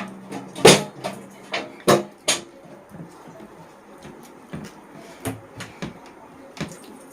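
Eating at a table: irregular sharp knocks and clicks of dishes and utensils, loudest in the first two and a half seconds, then fainter and sparser.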